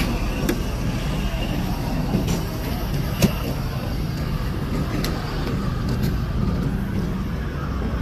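Steady engine rumble around a sprint car pit area, with faint voices and a sharp knock a little after three seconds in.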